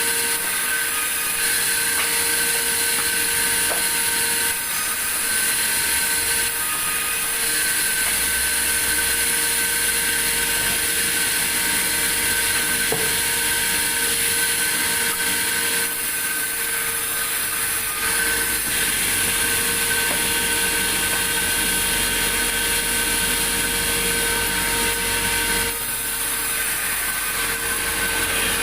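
Sawmill saw running through wood: a steady whine on a few fixed pitches over the noise of the cut, with a low rumble joining about eight seconds in.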